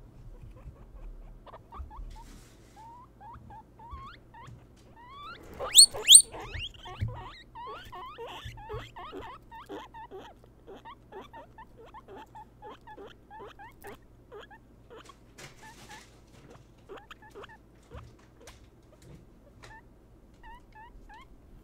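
Guinea pigs making short squeaky "pupupu" calls, several a second, with one louder, higher rising squeal about six seconds in.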